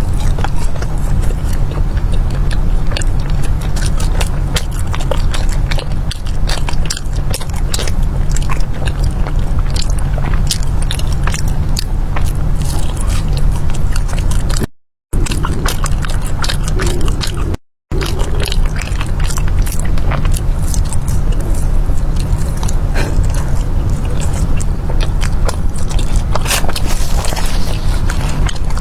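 Close-miked biting and chewing of syrup-glazed fried dough pastries, with many quick crisp crackles over a steady low rumble. The sound cuts out completely twice for a moment about halfway through.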